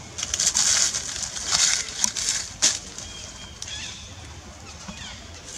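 Leaves and twigs of a shrub rustling as a young macaque climbs and hangs in it, loudest in the first three seconds with a couple of sharp snaps. Small birds chirp faintly in the quieter second half.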